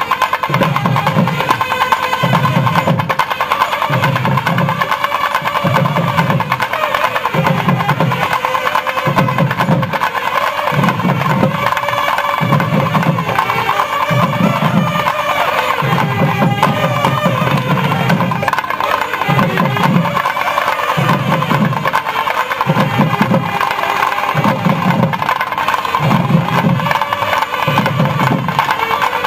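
A band of nadaswaram double-reed pipes playing together in a sustained melody, with low drum beats in a steady rhythm about once a second.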